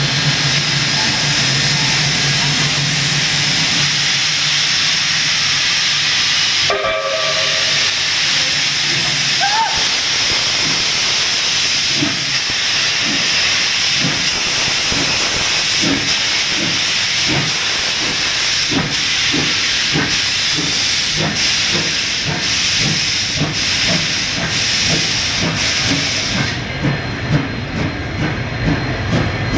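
Steam locomotive hissing loudly with escaping steam, giving a short whistle about seven seconds in, then its exhaust beats start and quicken as the train pulls away. The loud hiss stops suddenly near the end.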